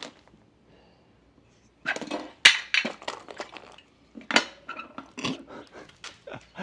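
Small hard objects being handled and set down: a run of short clinks and clattering knocks, starting about two seconds in.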